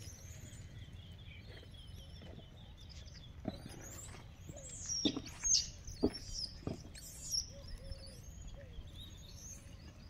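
Wild birds chirping and calling in quick, high notes over a low steady background, with a few sharp snaps or clicks about four to seven seconds in.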